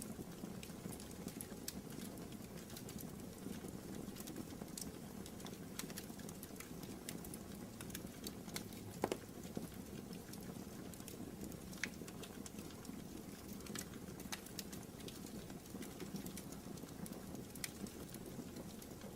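Wood fire burning in a fireplace: a steady low rush of flames with scattered small crackles, and one louder pop about nine seconds in.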